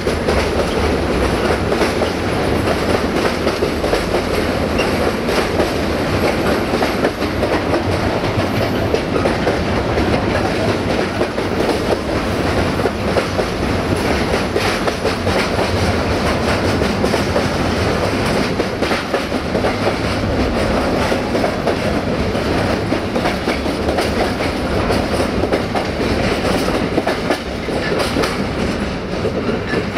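Loaded container wagons of a freight train rolling past, the wheels clicking rapidly over the rail joints under a steady rumble of wheels on rail.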